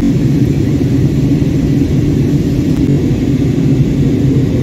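Airliner landing: a loud, steady low rumble of engines and rushing air.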